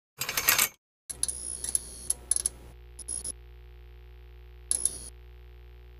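Logo intro sound effects: a short burst of noise, then from about a second in a steady low electronic drone with a string of short noisy hits and sweeps laid over it.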